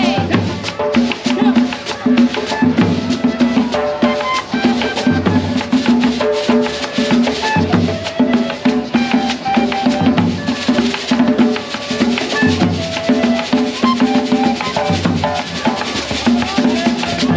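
Upbeat, percussion-driven dance music: drums and shaken rattles keep a fast, steady rhythm under a melody.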